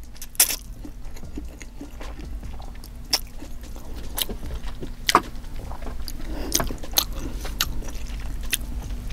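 Close-miked eating of black bean noodles: scattered sharp clicks and smacks, with wet chewing that gets busier in the second half.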